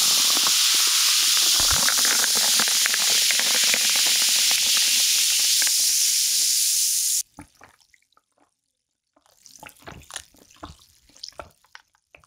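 Lime-flavoured sparkling water poured over ice into a glass mug, fizzing loudly with the crackle of bubbles and ice, until it cuts off suddenly about seven seconds in. Near the end come quieter sounds of the drink being sipped and swallowed.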